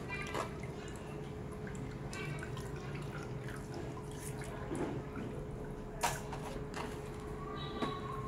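Water dripping and splashing, with scattered light clicks and one sharper click about six seconds in, over a steady low hum.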